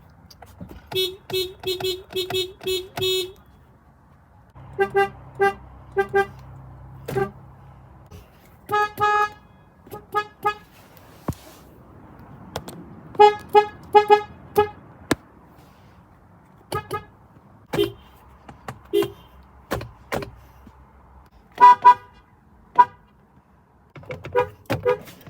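Car horns tooting in quick runs of short beeps, about seven runs with short pauses between them. More than one horn is heard: the first run is a single low note, and later runs sound higher, more than one pitch together.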